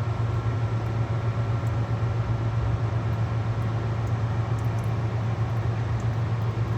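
Steady low hum of running industrial machinery, with a faint steady whine above it.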